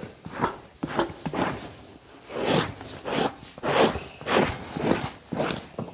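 Two-handled fleshing knife scraping down an elk hide stretched over a wooden beam, in repeated scraping strokes about two a second. The strokes clear dirt from the hide before tanning.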